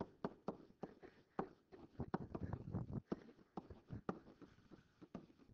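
Light, irregular taps and clicks of a digital pen writing on a tablet, one stroke after another as letters are handwritten.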